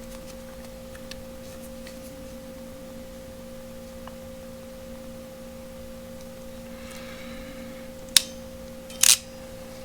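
A steady hum-like tone, with a fainter lower tone beneath it. Near the end come two sharp clicks about a second apart.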